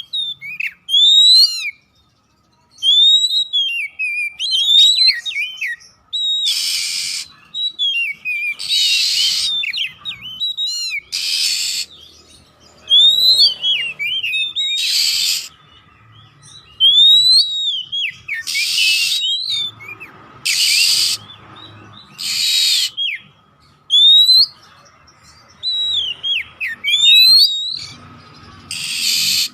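Oriental magpie-robin (black-bellied 'Kacer poci' form) singing a fast, varied song of whistled notes that slide up and down. The song is broken about every two seconds by short, harsh hissing bursts. A faint steady tone runs underneath.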